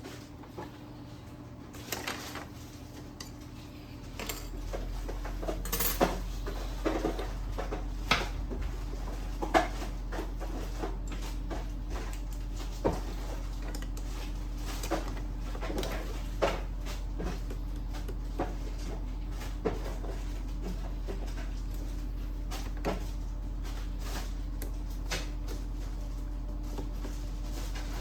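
Scattered clicks and knocks of hard plastic and metal parts being handled while an Epson L6290 inkjet printer is taken apart to change its printhead. A steady low hum comes in about four seconds in and carries on underneath.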